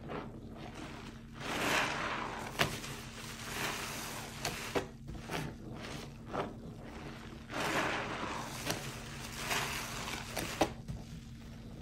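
A suds-soaked foam kitchen sponge squeezed and kneaded by rubber-gloved hands in a basin of thick detergent foam, with repeated wet squelching and swishing swells and a few sharp clicks.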